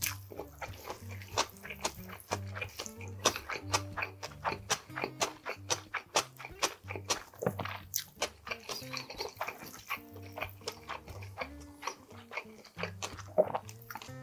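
Close-miked sounds of eating cold noodles: many sharp, wet clicks of chewing and of wooden chopsticks on the plate, over soft background music with a steady bass line.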